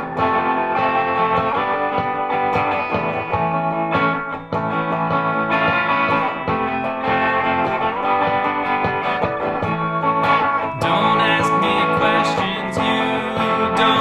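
Instrumental passage of a song, led by guitar, with no singing; it grows brighter about eleven seconds in.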